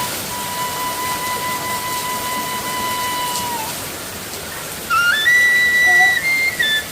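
Background music: a solo flute melody, one long held note, then about five seconds in a phrase of stepped higher notes, over a steady hiss.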